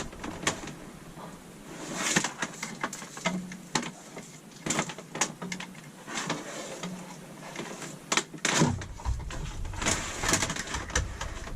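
Hand-handling noise as two-conductor 14-gauge wire is pulled and measured out: an irregular scatter of clicks, taps and rustles, with a sharper knock near the end.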